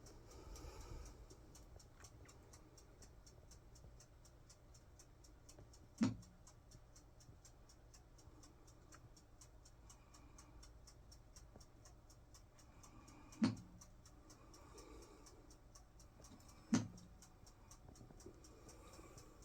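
Malfunctioning ceiling fan ticking fast and evenly, about four ticks a second, with a louder clunk three times: about six, thirteen and a half and seventeen seconds in.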